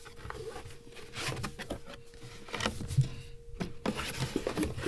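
Cardboard box being handled and its lid pulled open: scattered scrapes and taps of the cardboard flaps, with a sharper knock about three seconds in.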